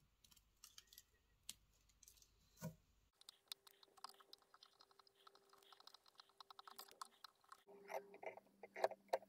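Faint rustling and small clicks of fingers handling a lure's synthetic fibres and tying thread, with one louder knock about two and a half seconds in and busier rustling near the end.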